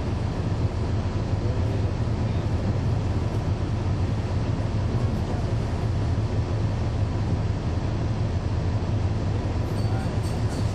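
Cabin of a NABI 40-foot transit bus running, heard from on board. The Cummins ISL9 diesel and road noise make a steady low drone, and the ZF Ecolife automatic transmission runs quietly, without whine.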